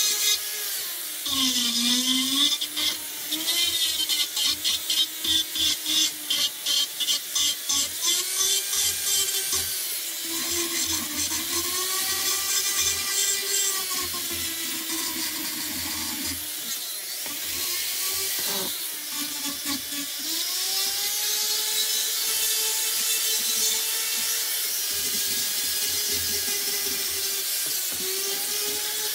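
Foredom flex-shaft rotary tool with a Saburrtooth carbide burr grinding catalpa wood. Its motor whine dips and recovers in pitch as the burr bites. Quick short strokes for the first several seconds give a grind that pulses about twice a second, then it settles into a steadier rasp.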